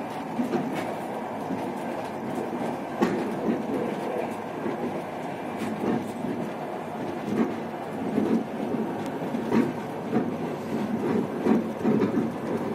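Passenger train carriage running on the rails, heard inside a sleeper compartment: a steady rumble with occasional sharp clicks and knocks.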